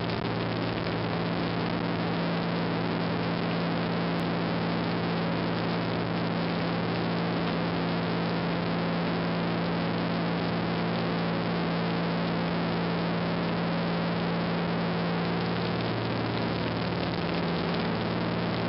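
de Havilland Beaver floatplane's piston engine and propeller running steadily, heard from inside the cabin as a constant drone made of several low hum tones over a rushing noise.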